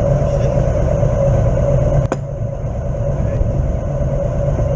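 Wind buffeting the microphone of a Drift Ghost XL camera mounted on the outside of an open-face helmet: a loud, steady low rumble with a hiss, starting and stopping suddenly.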